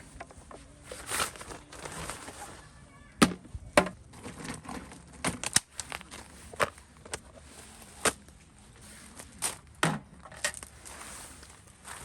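A series of irregular sharp knocks and clicks, a dozen or so, the loudest two a little over three seconds in, over a faint hiss.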